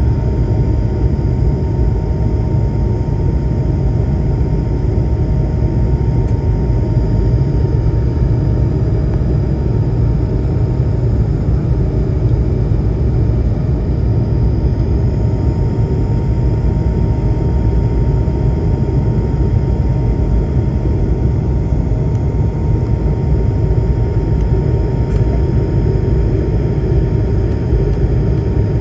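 An airliner's jet engines running at climb power, heard inside the cabin as a loud, steady low rumble with a thin steady whine through it.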